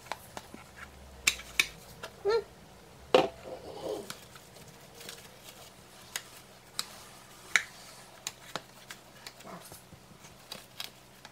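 A metal spoon clicking and tapping against a plastic burger press and a foam meat tray while raw ground beef is scooped and spread into the press. The taps are scattered and irregular, the loudest about three seconds in.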